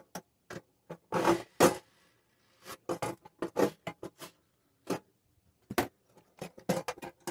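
Screwdriver tightening screws into a slow cooker's metal base: an irregular series of short clicks and scrapes of metal on metal, with a couple of longer scraping strokes about a second in.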